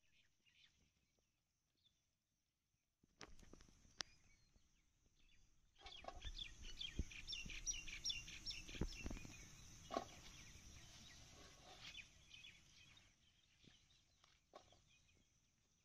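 Faint birds chirping in quick high notes, busiest in the middle, over soft rustling and a few sharp clicks as chilli plants are handled and picked.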